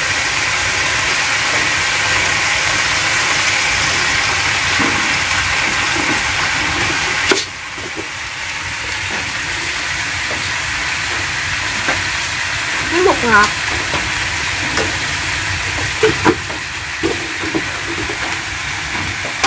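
A wok of clams and black snails sizzling steadily on the fire while seasonings are added. The sizzle drops suddenly in loudness about seven seconds in, and a few light clicks come near the end.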